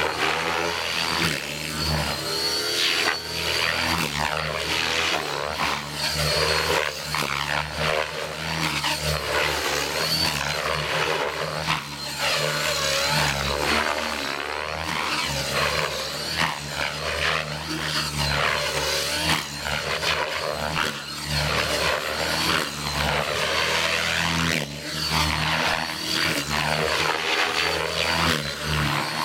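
Electric Align T-Rex 600 radio-controlled helicopter flying: the main rotor beats and whooshes, swelling and fading as it moves about, over a steady high whine.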